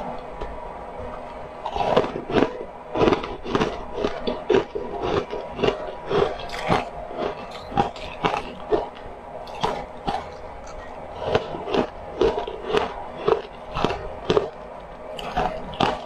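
Close-up crunching and chewing of frozen pink ice balls, sharp crunches coming about twice a second from about two seconds in.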